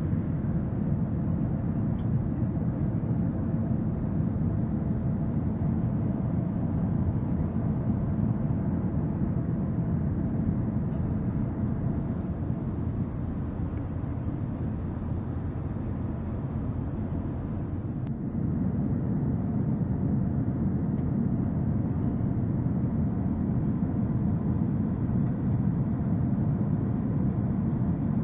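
Steady cabin noise inside a Boeing 767-300 airliner: a low, even rumble of engines and airflow with a faint steady hum, stepping up a little in level about 18 seconds in.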